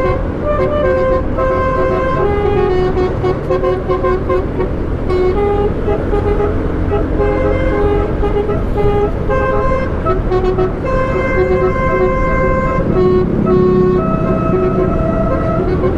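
Telolet horn fitted to a car, playing a running melody of short horn notes that change pitch every fraction of a second, over a steady rumble of road traffic.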